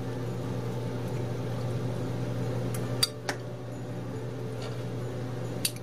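A fork clinking against a bowl as cooked vegetables are mixed: a few light clinks, two close together about three seconds in and one near the end, over a steady low hum.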